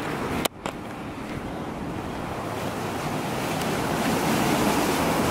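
Steady outdoor wind and water noise from waves lapping on a rocky shoreline, with wind on the microphone. The sound cuts out briefly about half a second in, then slowly grows louder.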